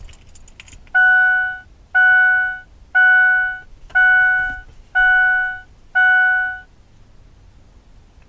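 A 2004 Ford Explorer's dashboard warning chime sounding six times, one a second, each a clear tone that fades, as the ignition is switched on.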